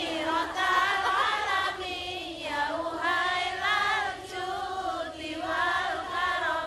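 A man singing a sholawat, an Arabic devotional song in praise of the Prophet, into a microphone over a hall PA, in a slow melody with wavering, ornamented held notes and brief breaths between phrases.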